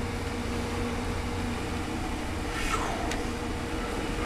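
Steady low electrical hum with a faint even hiss, with a brief faint falling sweep near the end.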